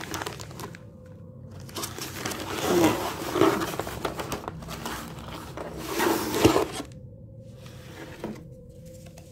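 Packaging rustling and crinkling in several bursts with short pauses, as a hand rummages in a cardboard box and pulls out an item.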